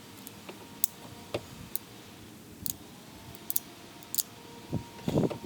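About six sharp, light clicks at irregular intervals from handling a pistol just before shooting. Near the end comes a short, duller rustle.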